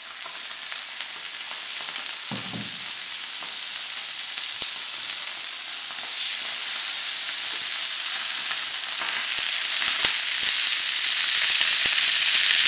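Barramundi fillets frying skin-side down in olive oil on a hot flat griddle pan: a steady sizzle that builds in loudness, with scattered pops of spitting oil.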